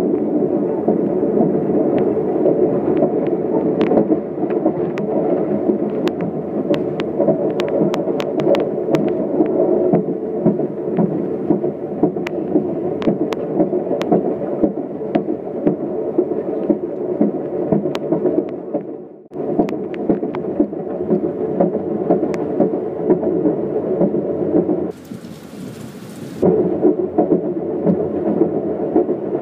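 Inside an Amtrak passenger coach on the move: the train's steady rumble, with many sharp clicks and clacks from the wheels on the rails. About 25 s in the rumble drops for a second and a half to a thin hiss, then comes back.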